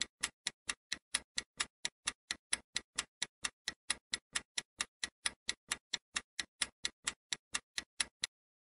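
Clock-ticking sound effect for a quiz countdown timer: a rapid, even run of sharp ticks, about four to five a second, that stops near the end as time runs out.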